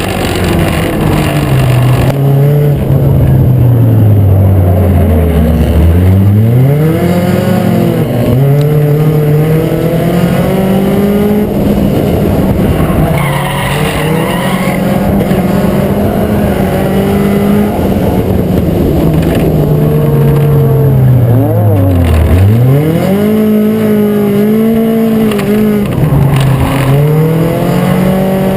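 Race car engine running hard around a short track: the pitch sinks as the car slows for the corner, then climbs quickly again as it accelerates, twice, about sixteen seconds apart.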